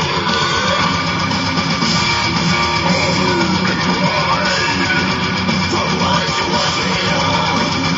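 Heavy metal music with distorted electric guitar playing steadily.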